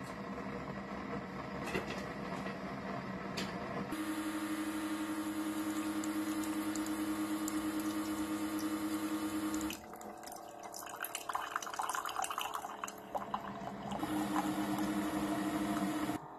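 Single-serve coffee maker humming as it heats, then its pump running steadily as hot water pours into a ceramic mug. The pump stops about ten seconds in, giving way to a few seconds of sputtering and dripping, then runs again briefly near the end.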